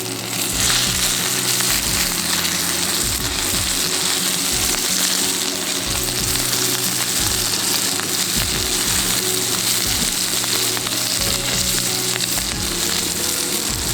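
Background music with held low notes over a steady, crackling hiss.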